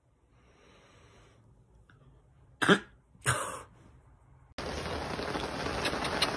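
Two short coughs about half a second apart, then, from about four and a half seconds in, a steady hiss of noise.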